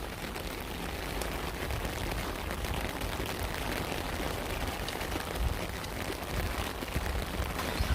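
Steady rain falling, an even hiss with many small drop ticks over a continuous low rumble.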